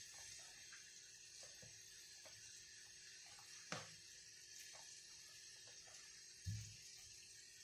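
Near silence: faint room hiss and a steady faint hum, with soft scattered ticks of hands mixing soaked bulgur in a plastic bowl. There is a sharper tap a little under four seconds in and a dull thump near the end.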